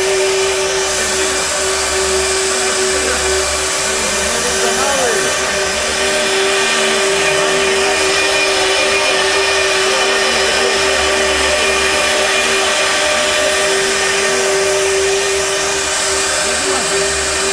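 CTO760 split-frame pipe beveling machine running and cutting a bevel on the pipe end, with a steady motor whine over the noise of the cut.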